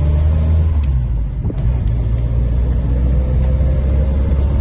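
A 1946 Morris Eight Series E's small side-valve four-cylinder engine running under way, heard from inside the cabin as a steady low drone. Its note dips briefly about a second and a half in, and a faint whine rises slightly in pitch in the second half.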